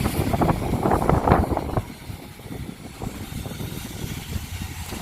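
Engine-driven machinery running steadily while the fishing boat is pulled slowly up onto the dock, louder for about the first two seconds.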